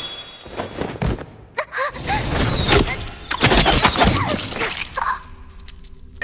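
Anime action sound effects: a rapid series of crashes and impacts with short sweeping glides. They fall away to a faint low hum near the end.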